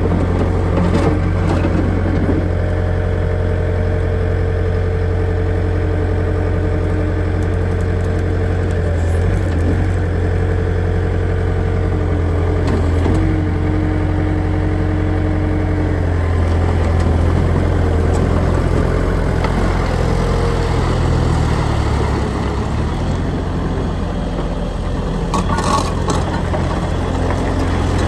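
Bobcat T320 loader's diesel engine running steadily, with a few brief clanks about a second in and near the end.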